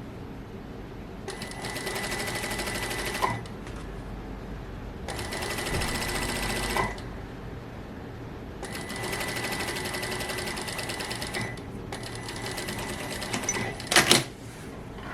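Sewing machine stitching in four short runs of steady, fast stitching with brief pauses between them, followed near the end by a short, sharp clatter.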